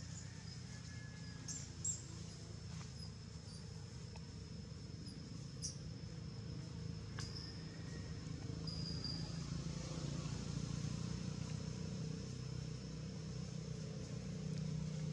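Outdoor forest ambience: a steady low drone that grows louder over the second half, a thin steady high insect tone, and a few sharp clicks.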